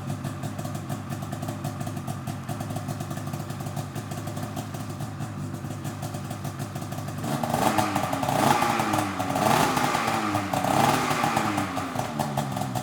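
Polaris Matryx 650 snowmobile's two-stroke engine exhaling through an RPM race silencer can, idling steadily, then blipped several times from about seven seconds in, the pitch rising and falling with each blip, before dropping back to idle.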